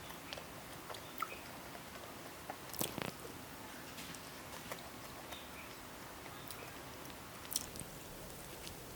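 A person chewing a burger close to the mic: faint, wet mouth clicks, with a few sharper bites, the strongest about three seconds in.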